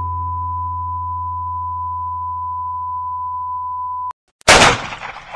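The last distorted rock chord rings out under a steady, high whistle-like tone and cuts off abruptly about four seconds in. After a brief silence comes a single loud bang, a gunshot, that dies away over about a second.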